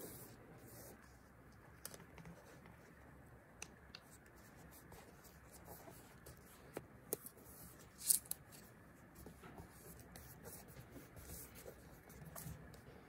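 Faint paper handling: stickers and paper pieces being placed, slid and pressed flat onto a notebook page with fingertips, giving scattered soft rustles and light ticks. The loudest is a short cluster of rustles about eight seconds in.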